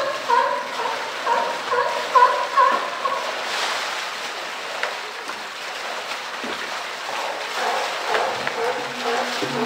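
Water splashing steadily as a spout pours into a pool and a polar bear moves in the water. A string of short, high, chattering calls rides over it for the first three seconds or so, and similar calls return near the end.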